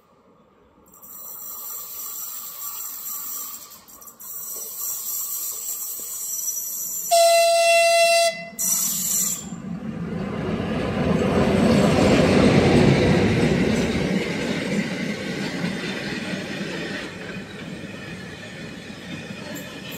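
A locomotive horn sounds one blast of just over a second, then a short second one. The locomotive and a long freight train of car-transporter wagons then run past at speed. The rumble of wheels on rail swells to its loudest a few seconds after the horn and carries on as the wagons go by.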